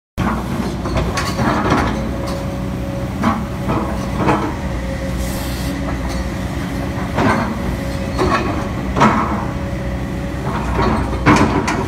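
Kobelco SK210LC-8 hydraulic excavator's diesel engine running steadily under load as the boom lifts and the arm swings out, with a steady hydraulic whine through the middle and a series of irregular knocks and clanks.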